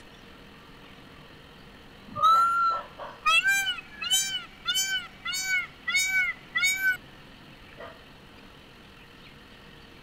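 Peafowl calling: one drawn-out call about two seconds in, then a quick run of six short calls that rise and fall in pitch, a little under two a second.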